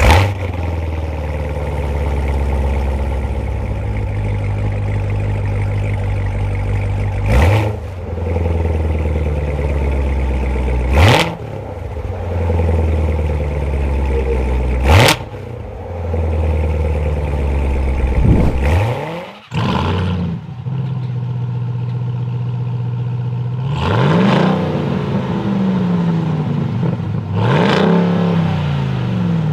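Car engine and exhaust sounds. First comes a hard-running engine that surges with a rise in pitch about every three to four seconds. After a sudden break about twenty seconds in, a different-sounding engine revs up and down a few times.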